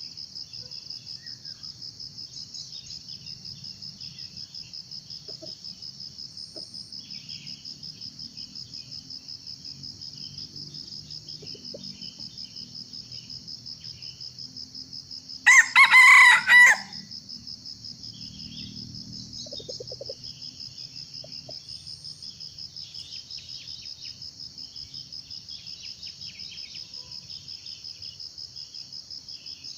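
Junglefowl crowing once about halfway through, a short crow of just over a second broken into three parts. Insects trill in a steady pulsing drone throughout.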